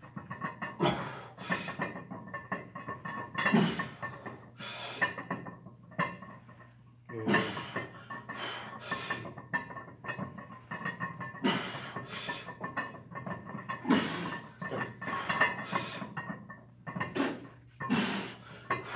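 Heavy, forceful breathing of a lifter partway through a long barbell back squat set: sharp hissing breaths in and out, often in pairs, every second or two, the labouring breath of a high-rep set. Quiet music plays underneath.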